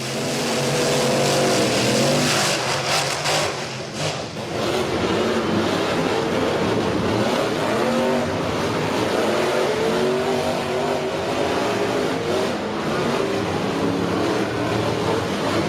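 Monster truck engines revving hard, the pitch rising and falling again and again over a dense rumble, with a few sharp cracks about three to four seconds in.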